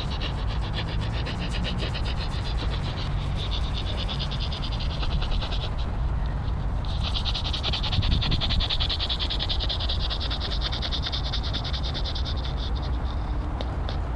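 Insects trilling: a rapid high-pitched pulsing that fades out about six seconds in and comes back stronger a second later, over a steady low rumble.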